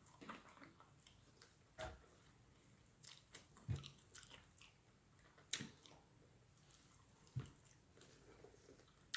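Quiet close-miked chewing and mouth sounds of a person eating, with a few louder wet smacks or bites spaced roughly two seconds apart.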